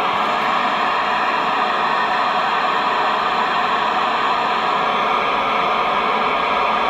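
Steady loud hiss of FM static from the speaker of an Icom IC-3200A dual-band FM transceiver, receiving on the 2-metre band with no voice on the channel.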